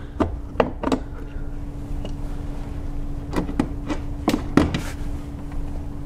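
Plastic push-type trim clips clicking and snapping as they are pried out of the rear parcel shelf trim with a clip removal tool. There are a few sharp clicks in the first second and another group about three and a half to five seconds in, over a steady low hum.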